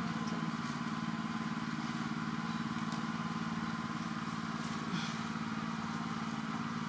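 Steady drone of an engine running at a constant speed, unchanging in pitch, with a few faint ticks over it.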